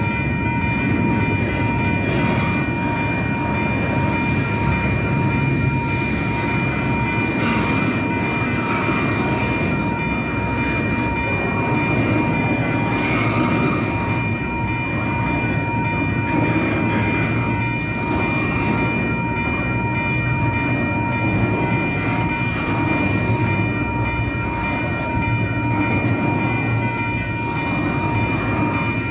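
Double-stack intermodal container train of well cars rolling past: a steady rumble and clatter of wheels on the rails. A steady high-pitched tone runs over it without a break.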